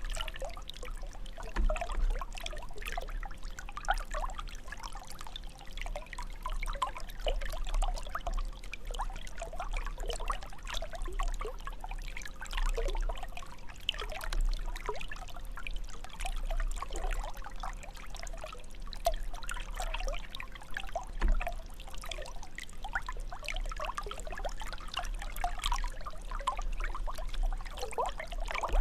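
Water jet from a fountain splashing and trickling steadily into its basin, a continuous patter of small splashes.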